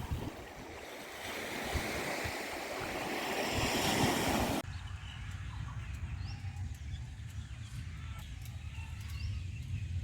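Sea waves rushing, swelling louder for about four and a half seconds, then cut off abruptly. After the cut there is a quieter steady low hum with a few faint short chirps.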